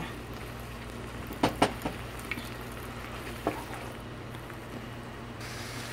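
A pan of tomato sauce simmering quietly, with a few sharp clinks of a utensil against the pan: two close together about a second and a half in, then single ones near two and a half and three and a half seconds, over a steady low hum.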